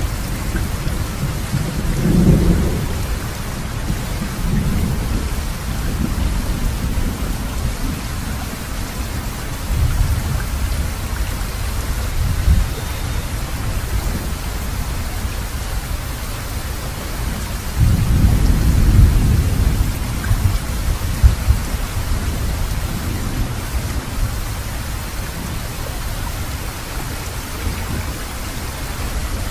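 Recorded thunderstorm: steady rain with low rumbles of thunder, the strongest about two seconds in and again from about eighteen to twenty seconds.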